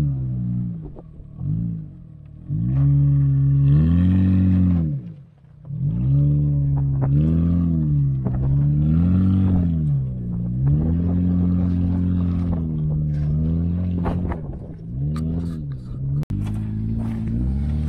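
Car engine revving up and down over and over, its pitch rising and falling every second or two while driving up a rough trail, with sharp clicks and crunches near the end.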